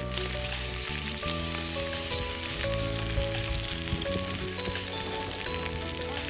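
Food sizzling as it fries in a pan: a steady crackling hiss, with background music of held notes underneath.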